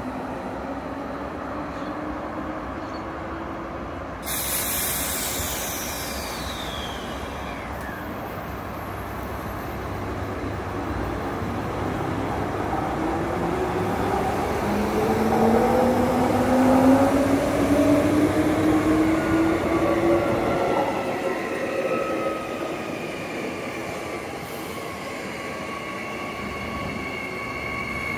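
Transperth electric multiple-unit trains. An A-series set pulls away with its electric motors whining upward in pitch. A louder rising whine peaks about two-thirds of the way through. Near the end, a B-series set runs in past the platform with high electric whines that ease slightly down in pitch.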